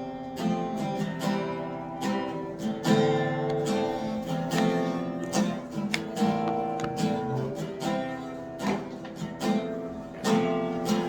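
Acoustic guitar strummed in a steady rhythm, moving through chords as an introduction before the singing starts.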